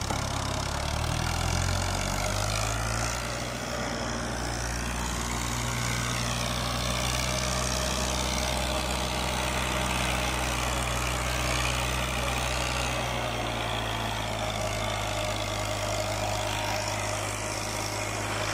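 1994 New Holland Ghazi 480 tractor's diesel engine working under load, hauling a sand-laden trolley up out of a pit. The engine note rises in the first couple of seconds, then runs steady.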